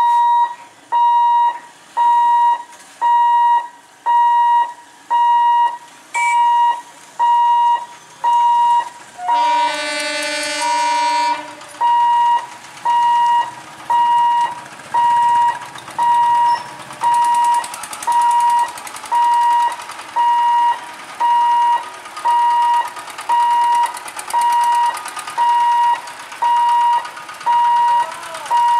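Railway level-crossing warning buzzer beeping loudly and steadily, a little over once a second. About ten seconds in, a horn sounds for about two seconds, and vehicle engines rise behind the beeping as traffic crosses.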